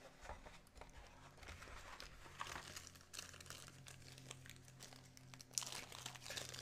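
Faint crinkling and rustling of a small clear plastic zip bag being handled, with scattered soft ticks. It gets a little louder near the end.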